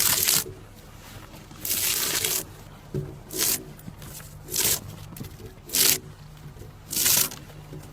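Drawknife strokes peeling bark and wood off a log: about six short, rasping scrapes, one every second or so.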